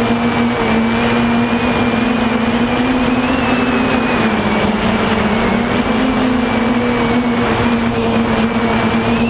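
Brushless motors and 10-inch propellers of a QAV540G quadcopter in flight, heard from on board as a steady buzzing hum over rushing noise. The pitch dips slightly around the middle and rises again as the throttle changes.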